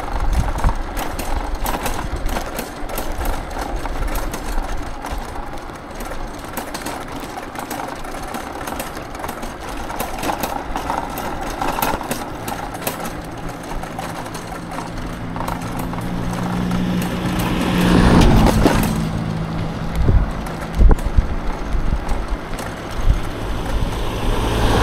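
Wind rushing over the microphone and road noise while riding an electric scooter. About two-thirds of the way in, a passing motor vehicle's engine grows louder, is loudest about three-quarters through, then fades, followed by a few thumps.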